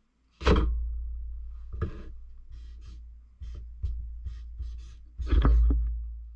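A marker writing on a spiral notebook page in a series of short scratchy strokes, with loud thumps about half a second in and again near the end as the notebook and hands knock against the workbench.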